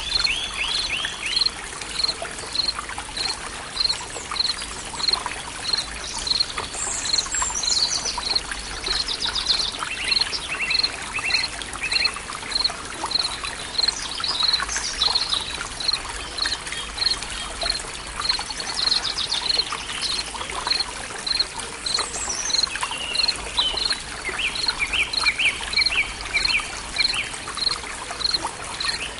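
Forest soundscape: several birds singing, one repeating a short high note steadily about every 0.7 seconds while others add trills and warbles, over trickling water. A steady low tone, the binaural beat track, runs underneath.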